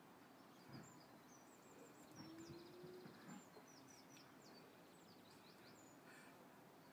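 Near-silent garden ambience with faint small-bird chirps and twitters scattered throughout, a few soft low thumps, and a brief low hum around the middle.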